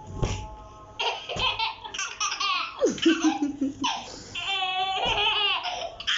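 A young child laughing in a run of repeated high-pitched bursts.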